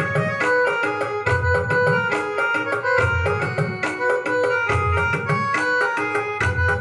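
Portable electronic keyboard playing a garba melody, quick sustained notes over a repeating tabla-like drum rhythm.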